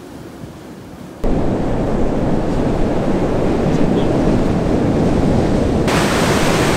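Loud wind buffeting on the microphone over the rush of breaking surf. About a second in, the sound jumps suddenly louder, and near the end it turns brighter and hissier.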